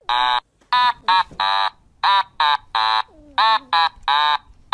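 Kittens mewing loudly over and over: about ten short, high mews, roughly two a second, each rising and falling in pitch.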